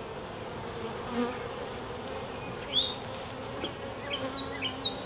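Honeybees buzzing around their hive, a steady hum, with a few short, high, falling chirps near the end.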